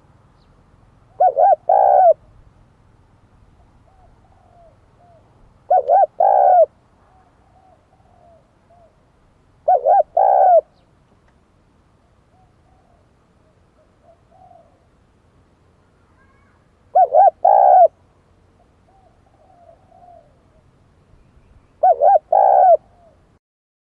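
Dove cooing: five loud phrases of about three quick coos each, repeated every four to five seconds, with fainter coos in between.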